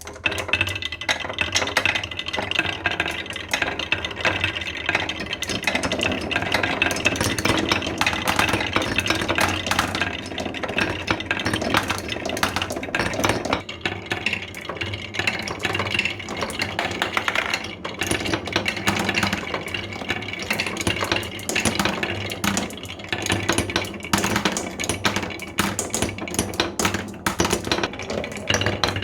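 Many marbles rolling and clattering down a wooden marble run, a dense, unbroken stream of rapid clicks and rattles.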